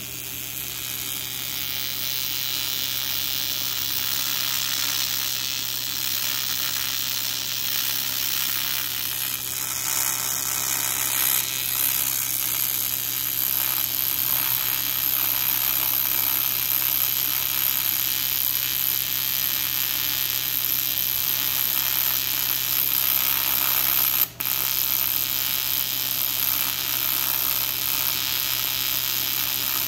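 AC TIG welding arc on aluminium buzzing steadily, with a constant low hum under it. The arc drops out for an instant about three-quarters of the way through, then carries on.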